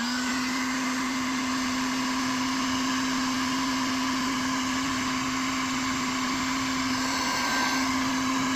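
Electric heat gun switched on and running steadily, its fan motor rising to speed at the very start and then holding a steady hum over a rushing hiss of hot air. It is being used to shrink the heat-shrink tubing on a crimped wire connector.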